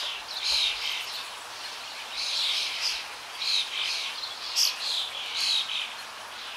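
Birds chirping: short, bright calls repeated every half second to a second, over a faint steady hiss.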